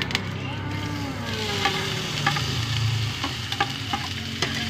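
Chopped green beans and carrots tipped into a hot wok, starting to sizzle about a second in and frying steadily, with a few sharp clinks against the wok.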